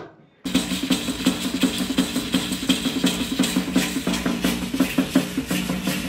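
Live folk music that starts suddenly about half a second in: a hide frame drum beaten with a stick in a quick steady beat, with rattling, over a sustained low tone.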